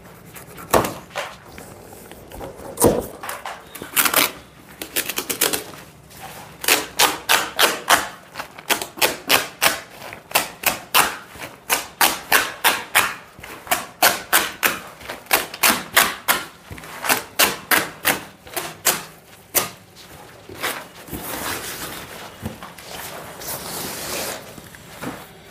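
Woven plastic sack around a boxed bicycle being ripped open by hand, in a long series of short, sharp tearing rips about two or three a second, giving way near the end to a stretch of rustling as the torn sack is pulled away.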